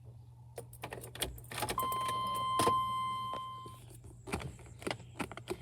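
Clicking and rattling, with one steady high-pitched beep held for about two seconds partway through, over a low steady hum.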